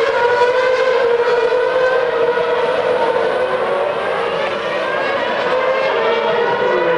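Formula One cars' 2.4-litre V8 engines screaming at high revs around the circuit, several high-pitched engine notes overlapping and drifting in pitch, one dropping near the end.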